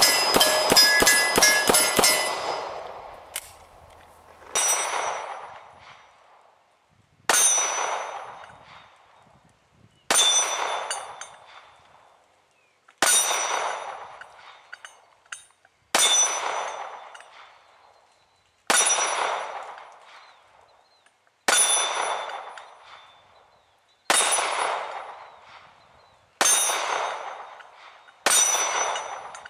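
Steel targets clanging under gunfire. A quick string of about eight hits in the first two seconds, then ten single hits about every two and a half to three seconds, each a sharp clang whose metallic ring dies away.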